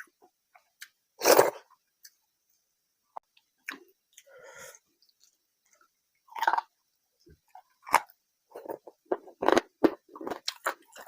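A person eating a rice and curry meal close to the microphone: a loud bite about a second in, scattered wet mouth clicks, then fast, dense chewing over the last few seconds.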